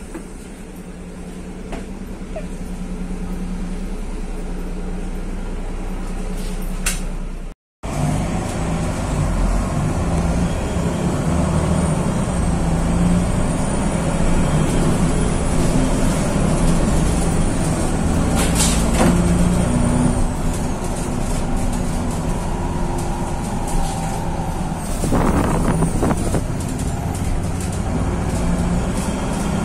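VW 26.330 OTA bus engine heard from inside the passenger cabin. It runs fairly quietly at first, then, after a brief break in the sound about a quarter of the way in, louder and busier as the bus drives. A faint high whine rises and falls through the middle, and there are a couple of short hisses or knocks.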